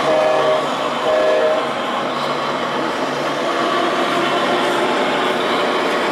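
Two short horn blasts from a radio-controlled model truck, the second about a second after the first, over a steady low hum and the noise of the hall.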